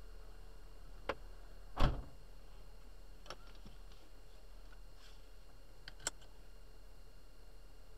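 A few sharp clicks and one louder knock inside a parked car, over a low steady hum. There is a click about a second in and the loudest knock just under two seconds in, then three fainter clicks spread over the next few seconds.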